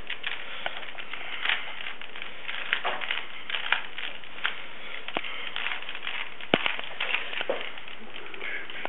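Rubik's cube being turned quickly by hand: irregular plastic clicks and clacks of the layers, over a steady hiss.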